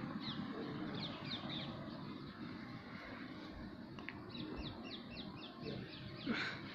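Small birds chirping in quick runs of short, falling notes, over a steady low background rumble.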